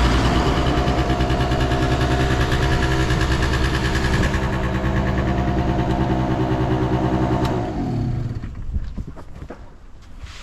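Honda Live Dio scooter's 50cc two-stroke single-cylinder engine idling steadily, with no unusual noise from it, then switched off about eight seconds in, its note sliding down and dying away. A few light clicks follow.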